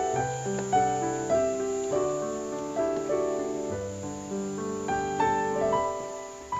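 Background piano music: a melody over changing chords.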